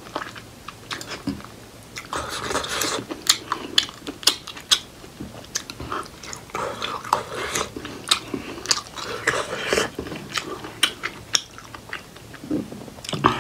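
Close-miked chewing and biting of steamed buff (water-buffalo meat) momo dumplings dipped in spicy achar: a dense run of mouth smacks and clicks, several a second.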